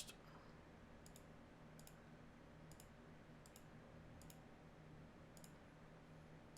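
Faint computer mouse clicks, about one a second, each a quick double tick of button press and release, over a low steady hum.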